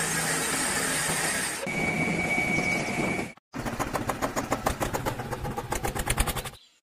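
A small motor running steadily, then a second whirring run with a steady high whine; after a brief cut, a rapid run of even clicks that grows quicker and stops abruptly.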